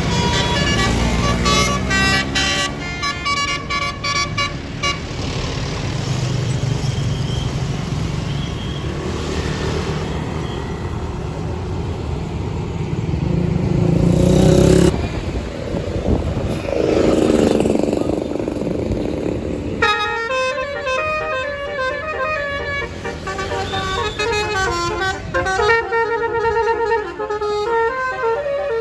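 Tour buses' basuri musical air horns playing quick tune-like runs of notes, in a first stretch and again from about two-thirds through. Between them, bus engine noise rises to a peak about midway and falls away.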